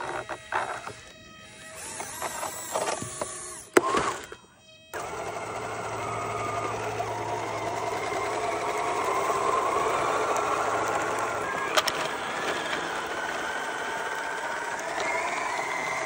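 Electric drive motors and gearing of a 3D-printed RC tracked skid steer whining steadily as it drives, rising in pitch near the end. Before that, about the first five seconds hold irregular clattering and a sharp click.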